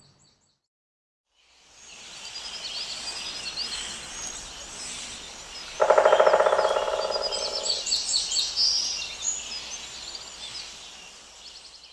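Forest ambience of small birds chirping fades in after a moment of silence. About six seconds in, a woodpecker drums: a sudden fast roll of taps on wood lasting about two seconds and fading away.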